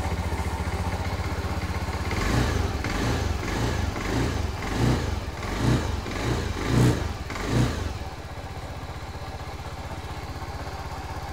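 Honda Vision scooter's single-cylinder fuel-injected engine running after a restart, now that the cut power wire to its fuel injector has been reconnected and error 12 is cleared. Its throttle is blipped about eight times in quick succession before it settles back to a steady idle.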